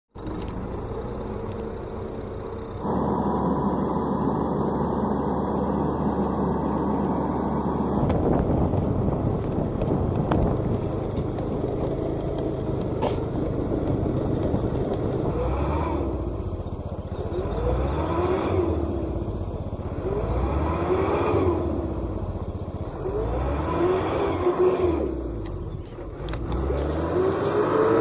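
Engine of a light flatbed truck loaded with a combine harvester, running steadily and then driving. In the second half the engine pitch rises and falls again and again, every two to three seconds, as it revs up and eases off.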